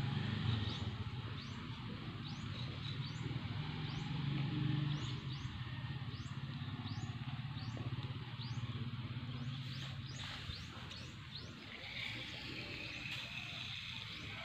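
A bird's short high chirps, repeated about twice a second, over a low steady hum that fades after about two-thirds of the way through.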